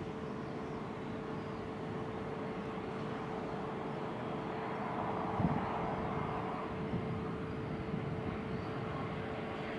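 Distant jet airliner on final approach, its engines a low steady rumble that slowly builds, with wind buffeting the microphone. A steady faint hum runs beneath it, and there is a brief thump about five and a half seconds in.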